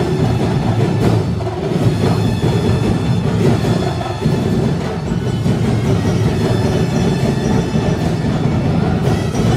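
Loud Sinulog dance music driven by heavy drums and percussion, with held tones above the beat.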